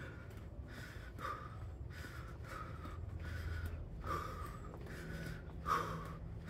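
A person breathing hard from exertion in the middle of a workout circuit: quick, repeated forceful breaths, about two a second, with the loudest breath about five and a half seconds in.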